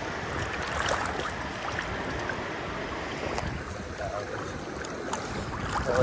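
Shallow sea water swishing and lapping around a person wading through it waist-deep, a steady rush with small splashes throughout, with some wind on the microphone.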